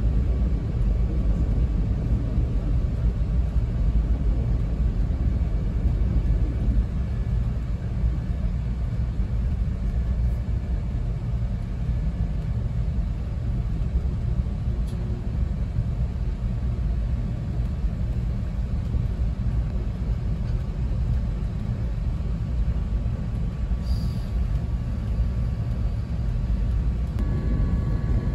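Steady low rumble of an Acela Express trainset running at speed, heard from inside the passenger car. The rumble swells near the end as it passes another train.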